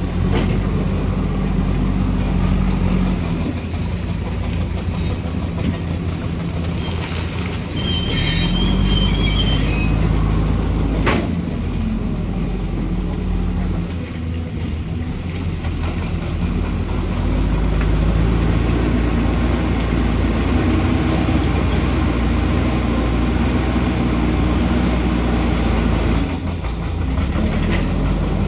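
Heavy diesel engine of earthmoving machinery running and working, its note rising and falling with the load. Brief high squeals come about a third of the way in, and a single sharp click follows.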